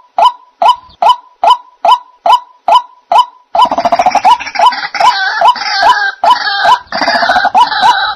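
White-breasted waterhen (dahuk) calling: a steady series of sharp, repeated notes a little over two a second. About three and a half seconds in, this gives way to a denser run of overlapping calls.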